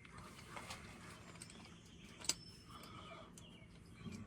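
Quiet, with faint scattered clicks and one sharp click about two seconds in.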